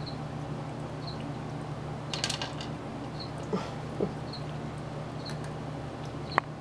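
Cat crunching dry kibble from the bowl of an automatic pet feeder: a burst of crunches about two seconds in, a couple more a little later, and a sharp click near the end. Under it runs the steady low hum of a pet water fountain's pump.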